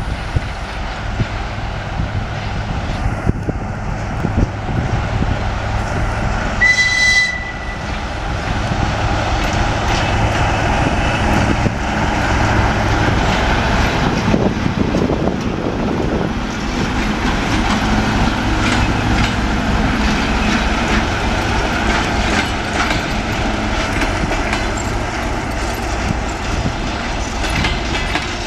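ChME3 diesel shunting locomotive running as it hauls a passenger train past, its engine's steady hum under the rolling noise and clickety-clack of the coaches' wheels on the rails. A short high-pitched signal sounds about seven seconds in.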